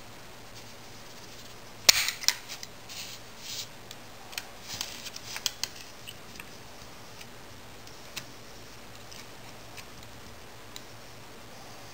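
Channel-lock pliers working a metal tube and spacebar wire held in a jig: a sharp click about two seconds in, the loudest sound, then a quick run of smaller clicks and scrapes for a few seconds, and a few scattered clicks after.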